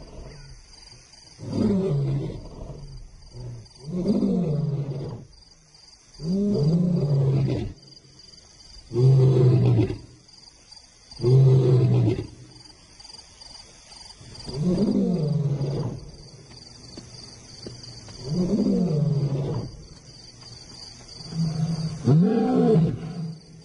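Lions calling in a series of deep roars. There are about eight calls, each about a second long and falling in pitch, coming every two to three seconds. A faint steady high chirring runs underneath.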